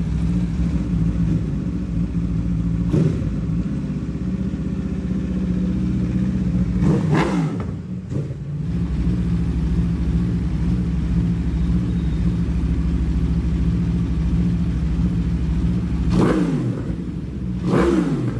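Aprilia RSV4 Factory's V4 engine idling steadily, with quick throttle blips that rise and fall in pitch: a short one about three seconds in, a bigger one around seven seconds, and two more near the end.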